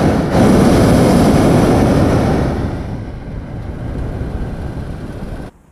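Hot-air balloon's propane burner firing in a loud, continuous roar, with a short break just after it starts, easing a little midway and stopping abruptly near the end.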